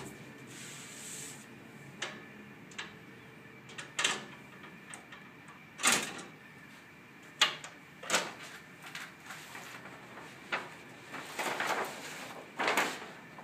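Irregular knocks, clicks and rustling scrapes of brand kit panels being handled and fitted onto an ATM, with a few louder knocks in the middle and longer scraping rustles near the end.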